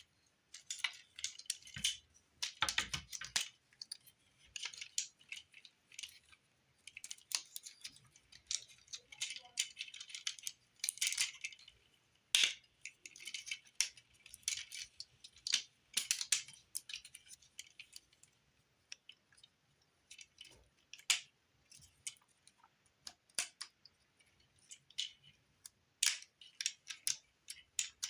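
Plastic parts of a Transformers Studio Series Deluxe Ironhide figure clicking, snapping and rattling as it is worked by hand from vehicle mode into robot mode. Many quick, irregular clicks and small clatters, with short pauses between handling moves.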